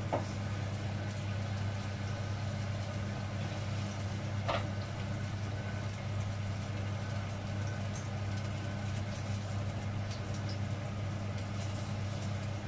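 Chicken wings frying in hot oil, a faint steady sizzle over a steady low hum. A sharp utensil click comes about four and a half seconds in.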